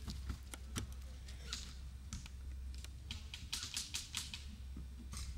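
Airsoft guns firing: an irregular run of sharp clicks, several close together in places, over a steady low rumble.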